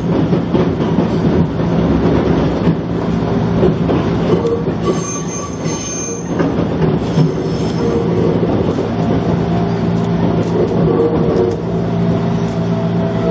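Gakunan Railway electric railcar running, heard from inside at the front of the car: a steady rumble of motor and wheels on the rail, with a brief high wheel squeal about five seconds in.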